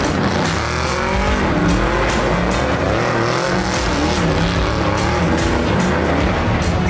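Toyota off-road race truck doing a burnout: engine revving and tyres squealing in wavering, gliding pitches as it spins. Background music with a steady beat plays underneath.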